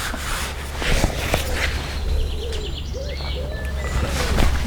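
Birds calling outdoors: a run of low, repeated rising-and-falling notes and a few short higher chirps, over a steady low rumble.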